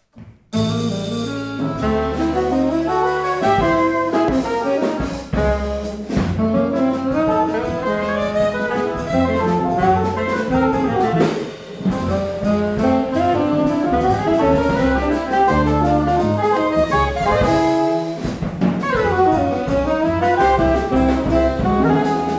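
Live contemporary jazz quartet playing: alto and tenor saxophones in busy interweaving lines over walking double bass and drum kit. The music starts abruptly about half a second in.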